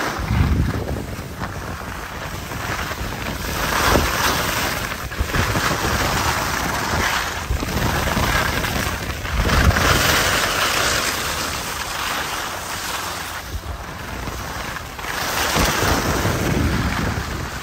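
Wind buffeting the microphone: a rushing noise with low rumbles that swells and eases several times.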